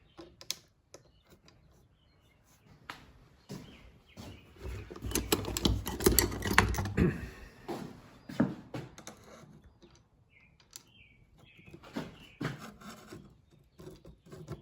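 Scattered metallic clicks and knocks as the handle on a Vevor melting furnace lid is lifted and shifted while a screw is worked toward a misaligned threaded hole, with a denser run of knocking and scraping about five to seven seconds in.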